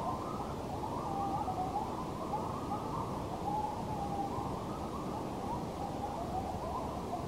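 A pack of coyotes howling and yipping in chorus, several wavering, overlapping calls rising and falling in pitch, with no break. The pack is answering another pack's calls.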